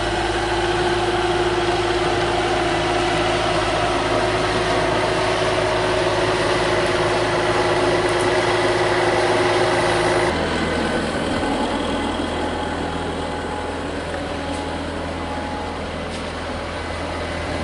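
Bobcat skid-steer loader's engine idling steadily. Its tone changes abruptly about ten seconds in.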